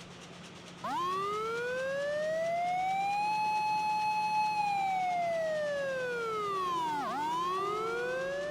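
Emergency-vehicle siren wailing, starting about a second in: a slow rise in pitch, a brief hold at the top, a slow fall, then rising again near the end.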